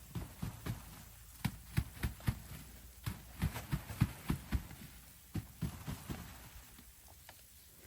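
A series of soft, irregular thumps and knocks, about two or three a second, thinning out near the end.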